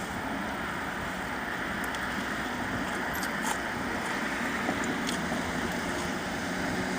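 Steady low hum and hiss inside a parked car's cabin, with a few faint clicks.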